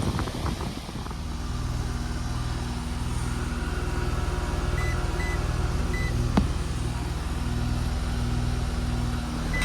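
2021 Carrier split system's outdoor condensing unit running steadily, its compressor and condenser fan humming under load. Three short high beeps come around the middle, followed by a single click.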